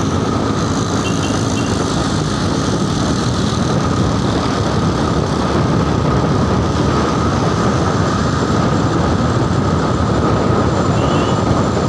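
Motorcycle riding along a road at steady speed: continuous engine and road noise with wind rushing over the microphone.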